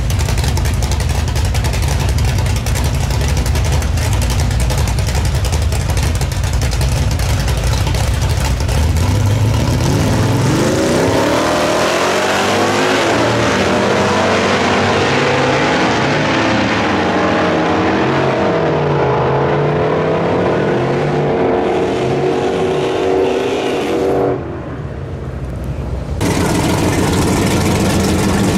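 A yellow 1955 Chevrolet drag car's engine idles loudly and low at the starting line, then the car launches: the revs rise sharply and pull away down the track, with the sound thinning as it goes. Near the end there is a sudden cut to a Plymouth Barracuda drag car's engine revving hard during a smoky burnout.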